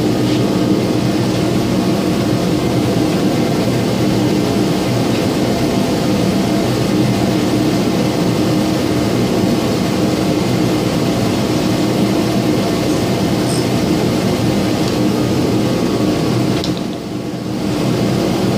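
A machine running with a steady, loud hum that dips briefly near the end.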